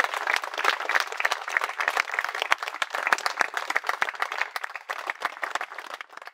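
A small crowd of guests applauding, many hands clapping at once, the clapping thinning out near the end.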